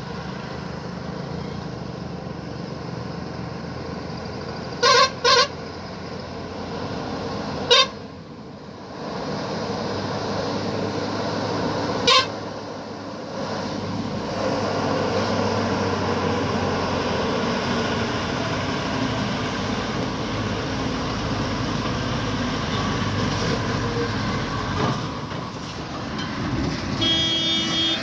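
Road traffic at a curve: heavy trucks' engines running as they come round and pass, growing louder about halfway through. Short horn toots cut through: two quick toots about five seconds in, another near eight seconds and one about twelve seconds in.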